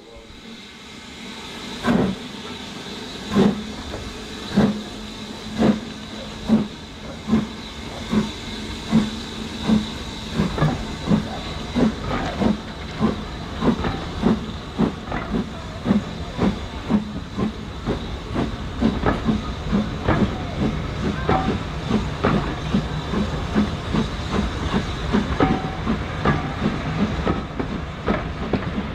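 Steam locomotive pulling away with a train, with a steady hiss of steam. Its exhaust beats start about two seconds in, slow and loud at first, then come quicker and quicker as it gathers speed.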